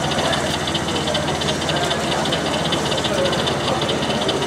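Model train running on an exhibition layout: a steady, fast pulsing over a low hum, with a murmur of voices in the hall behind it.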